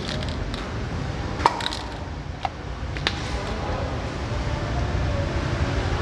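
Steady low background rumble, with three sharp clicks about one and a half, two and a half and three seconds in.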